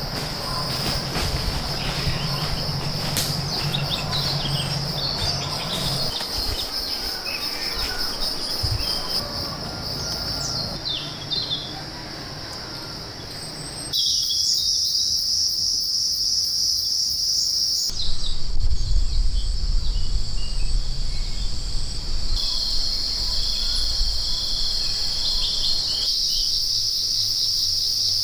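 Dense insect chorus, a steady high-pitched buzz that shifts abruptly at a few points. A few short bird chirps come in the first half, over low rustling and knocks.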